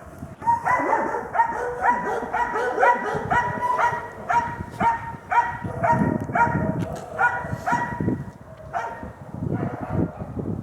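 Hunting dogs barking at a wild boar they have bayed, in a rapid, repeated run of about two to three barks a second that thins out near the end.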